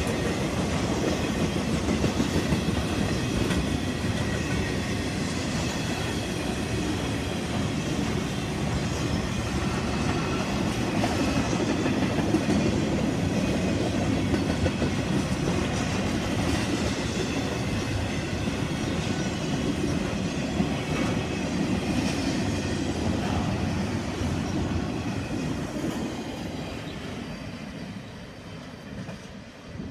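Intermodal freight train's cars rolling past at speed: a steady rumble and clatter of steel wheels on the rails. It fades near the end as the last cars pass and roll away.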